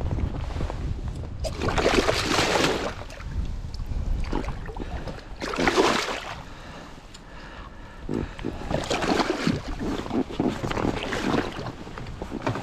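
A musky thrashing in a landing net at the side of a raft, splashing the water in three main bouts, over a low wind rumble.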